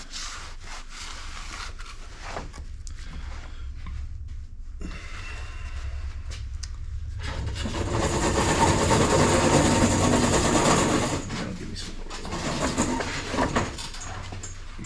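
A small motor running with a steady low hum and a rushing noise that starts about five seconds in, is loudest in the middle, then eases off.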